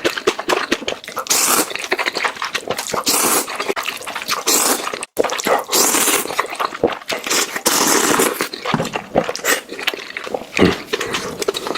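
Close-miked noodle eating: long hissing slurps of noodles broken by rapid wet chewing and smacking clicks. The sound drops out for an instant about five seconds in.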